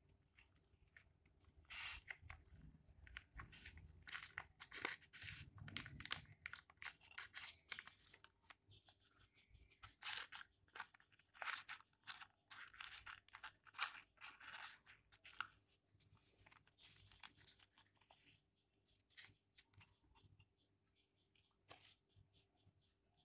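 A sheet of paper rustling and crinkling in the hands as it is wrapped around an egg roll: a quick run of short, soft crackles that thins out after about sixteen seconds.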